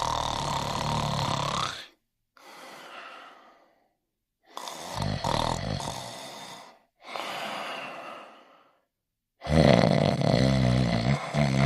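Slow, regular snoring: a loud snore alternates with a quieter, breathy breath, the loud snore coming three times, about five seconds apart.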